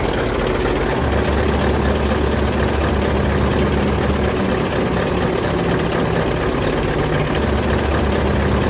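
Heavy diesel engine idling steadily, with a deep low rumble that comes in about a second in, fades past the middle and returns near the end.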